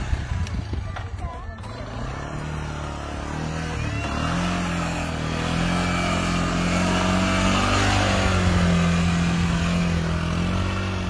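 A small vehicle engine speeding up over the first few seconds, then running at a steady high speed and growing louder toward the end.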